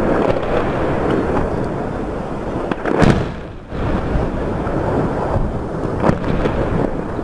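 Deep rumbling of heavy explosions from helicopter-dropped naval mines. A sharp blast about three seconds in is followed by a brief dip in level, and a smaller crack comes about six seconds in.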